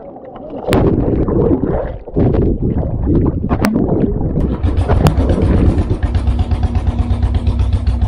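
Rushing, churning water and bubbling as an action camera plunges in and out of a fast-flowing waterfall pool. About four and a half seconds in, this gives way to an intro soundtrack: a steady low drone with a fast, even engine-like pulse.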